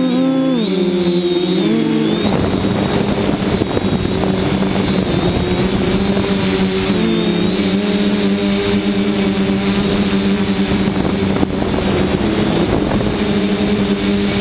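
Multirotor drone's electric motors and propellers heard from its onboard camera: a buzzing whine that wavers up and down in pitch as the throttle changes, then settles steady, with a rushing air noise over it from about two seconds in.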